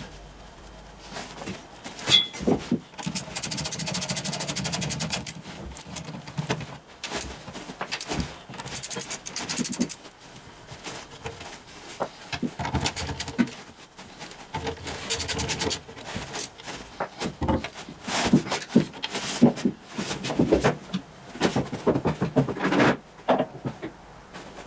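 Ratchet wrench clicking in quick runs and tools knocking and clanking against metal while the oil pan bolts are backed out of a Ford 800 tractor, in sped-up footage.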